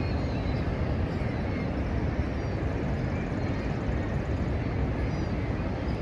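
Niagara Falls' falling water rushing, a steady dense rumble heaviest in the low end, with a few faint bird chirps above it.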